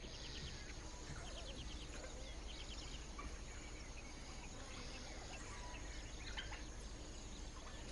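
Faint dawn bush ambience: birds calling in short, rapid trilled chirps, repeated several times, over a steady high insect drone.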